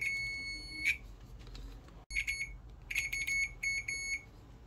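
UNI-T UT39A digital multimeter's continuity buzzer beeping as the test probes make contact: one long high beep of about a second, a short beep about two seconds in, then a quick run of short beeps near the end.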